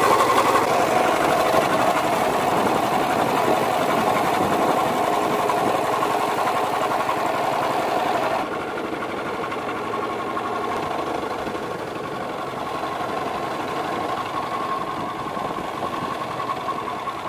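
A small boat's engine running steadily on the water. About halfway through it becomes quieter and duller.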